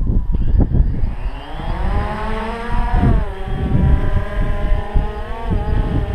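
DJI Phantom 2 quadcopter's electric motors and propellers spinning up about a second in, a buzzing whine rising in pitch as it lifts off, then holding steady with small wobbles as it hovers.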